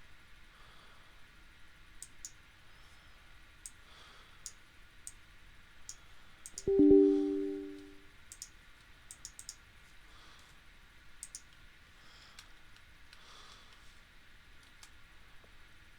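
Scattered computer mouse clicks at irregular intervals. About seven seconds in, a loud pitched tone of several notes sounds suddenly and fades away within about a second.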